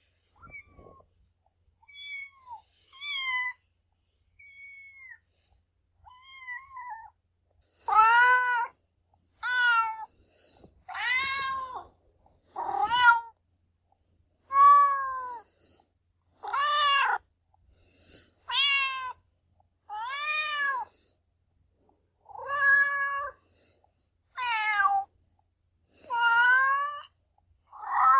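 Cat meowing: a few faint, short, high-pitched mews in the first several seconds, then a long run of loud meows, each rising and falling in pitch, about one every one and a half to two seconds.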